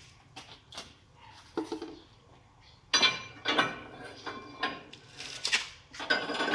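Metal clinks and knocks of steel parts and hand tools being handled while fitting a machine's track chain, a few sharp strikes, louder from about three seconds in.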